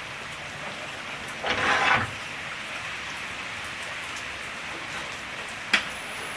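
Steady hiss of rain falling. About a second and a half in comes a brief, louder scraping rustle, and near the end a single sharp click.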